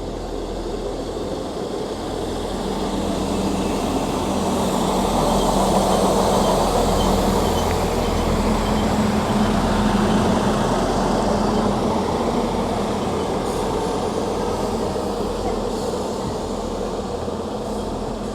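A train passing through the station: its steady engine hum and rumbling wheel noise build up, are loudest around six to ten seconds in, then slowly fade.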